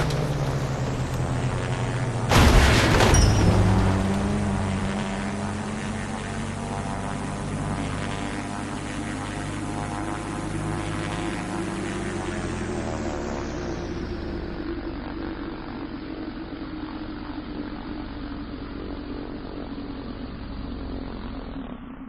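Helicopter engine and rotor drone with slowly gliding pitch, broken by a loud burst about two and a half seconds in, then slowly fading and growing duller.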